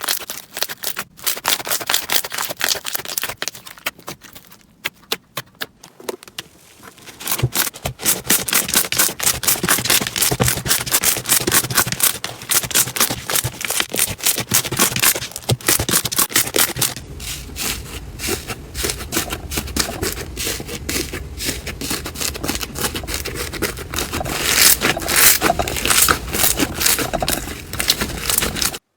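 Slime being squeezed and pressed by hand, giving a rapid stream of small crackles, pops and squelchy clicks. The clicks are sparse for the first several seconds, then become dense and nearly continuous, and they stop abruptly just before the end.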